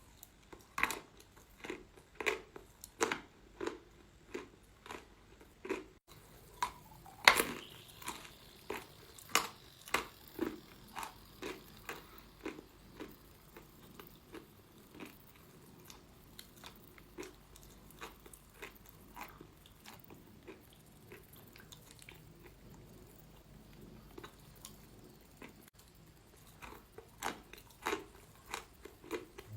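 A person biting and chewing crunchy chalk: a run of crisp crunches about one and a half a second, with one loud bite about seven seconds in. The crunches grow softer through the middle and turn sharp again near the end.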